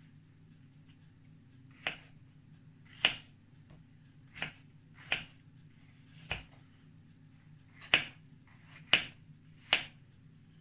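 Kitchen knife chopping peeled apples into small cubes on a wooden cutting board: about eight sharp knocks of the blade through the fruit onto the board, at uneven intervals a second or so apart.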